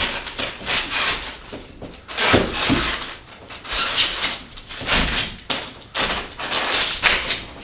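A metal file pressed and dragged into the expanded foam of an insulated concrete form wall, pushing an electrical wire down into a channel cut in the foam. It makes a series of irregular short scraping strokes, with a few dull knocks.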